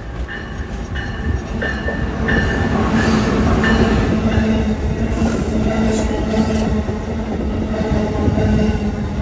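A train running past, its noise building about two seconds in, with a steady low hum joining soon after. A bell rings about twice a second early on and is drowned out as the train grows louder.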